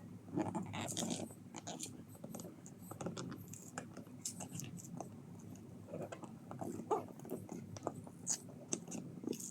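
Cardboard box being pried open and torn at its edge by hand: irregular scratching and crackling with many small snaps.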